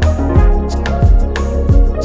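Background music with a steady beat: kick drum, sharp percussion hits and sustained keyboard chords.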